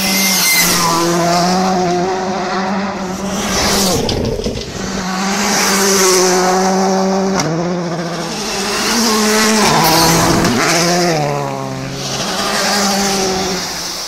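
Škoda Fabia R5 rally car's 1.6-litre turbocharged four-cylinder engine revving hard at speed, its pitch climbing and dropping again and again as the sequential gearbox shifts up and down.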